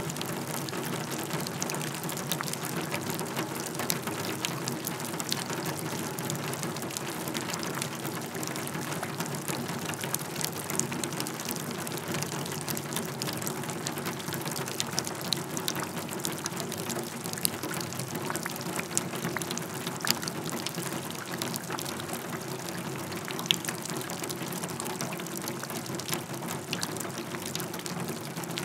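Rain falling on a wheelbarrow: a steady, dense patter of drops striking the tray, with scattered sharper single drop hits standing out.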